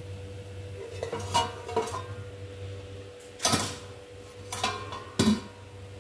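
Metal lid and steel cooking vessels being handled on a stovetop: a series of sharp clanks and clinks, about five in all, over a steady low hum.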